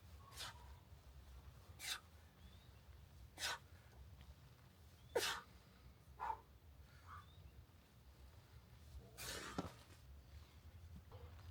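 A person breathing out in short, sharp puffs, about one every second and a half, with a longer, louder breath about nine seconds in: hard exhaling through a set of exercise repetitions.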